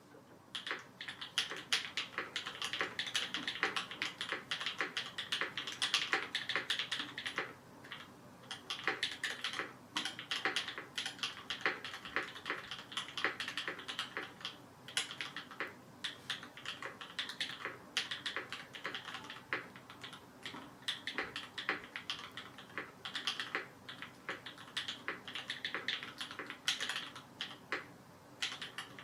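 Typing on a Perry Mc65 custom mechanical keyboard with lubed BCP switches (H1 bottom housing, Kailh Black stem, vintage Cherry top), an anodized aluminium plate and GMK keycaps; keystrokes start about a second in and go on at an unhurried typing pace.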